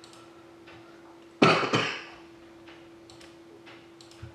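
A person coughs twice in quick succession, loudly, about a second and a half in, over faint ticking and clicking sounds and a steady low hum.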